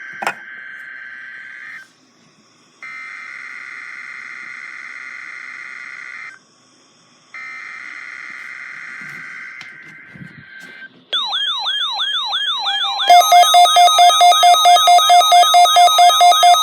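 Emergency Alert System test signal: three bursts of buzzy digital data tones (the SAME header), then about 11 seconds in a rapidly sweeping siren-like tone, joined near 13 seconds by a louder pulsing alert tone.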